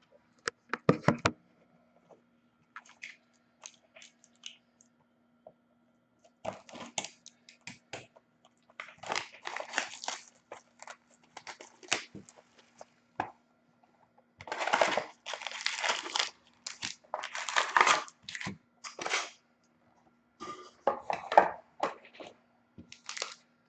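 Crinkling plastic wrapping being torn open and crumpled, with handling of a trading card box, in irregular crackling bursts that grow busier about halfway through.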